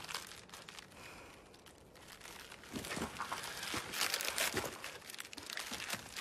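Scattered rustling, crinkling and crunching noises of someone moving and handling things on gravelly ground, quiet at first and busiest from about three to five seconds in.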